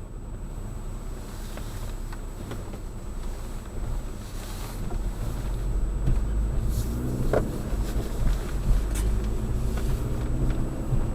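Volkswagen GTI driving: steady engine and road rumble that grows louder from about six seconds in, with the engine note rising as the car accelerates, and a brief sharp tick near the middle.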